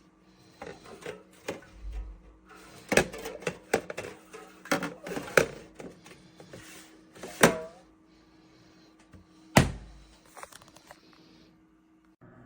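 A run of sharp clicks and knocks, as of plastic being handled, over the steady low hum of a thermoelectric mini fridge's cooling fan. Near the end the hum breaks off and a slightly louder hum at a different pitch takes over.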